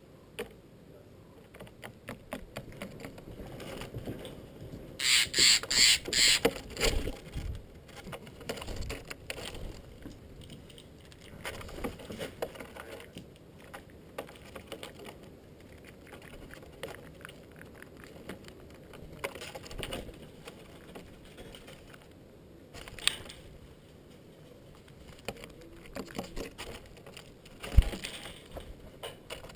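Steller's jays at a peanut feed: scattered light taps and clicks, with a series of four loud, harsh calls about five seconds in and a few fainter ones later.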